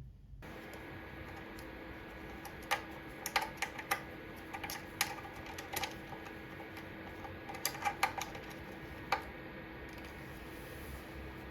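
A steady low hum with two clusters of short, light clicks and taps, about three seconds in and again near eight seconds.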